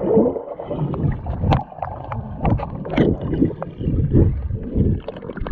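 Water sloshing and splashing close to a waterproof action camera in a swimming pool, an uneven rumble with scattered knocks and splashes.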